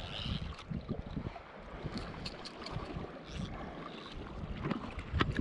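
Wind buffeting the microphone over the wash of the sea at the shoreline, with a few faint clicks.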